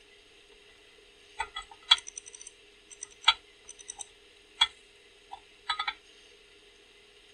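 A round metal gauge body clicking and knocking against the edges of a hand-filed hole in a metal dash plate as it is pushed in and turned for a test fit. Scattered sharp clicks and taps, with a quick run of them about two seconds in and a short cluster near the end.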